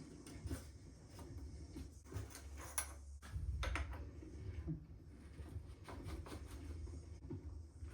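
Scattered clicks and knocks of bicycle parts and tools being handled, over a low rumble.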